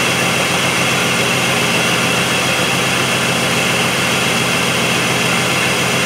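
Jeep Liberty 3.7 L V6 idling steadily, misfiring on cylinders 4 and 6: both ignition coils have shorted secondary windings.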